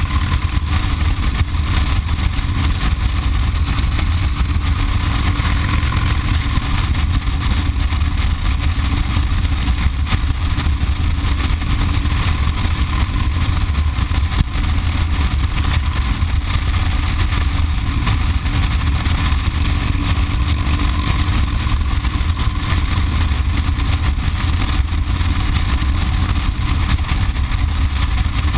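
Motorcycle cruising at a steady speed, its engine and the rushing wind picked up by a bike-mounted camera as an even, unchanging low rumble.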